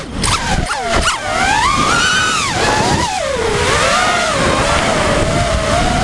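FPV racing quadcopter's motors and props whining, the pitch swinging fast in the first second and then rising and falling with the throttle.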